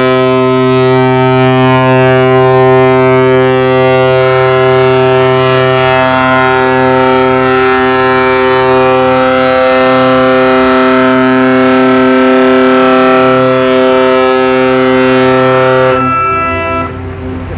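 Ship's horn sounding one long, steady blast, loud and unwavering in pitch. It cuts off near the end, leaving a brief fainter tone.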